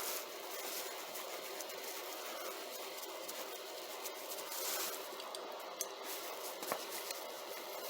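Faint scraping and a few small clicks of a size 0 Phillips screwdriver working tight screws out of a Snap-on ratchet's cover plate.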